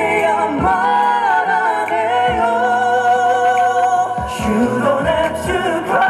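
A male singer sings live into a handheld microphone over a backing track, holding long notes with slides between pitches. A low drum beat lands every second or two beneath the voice.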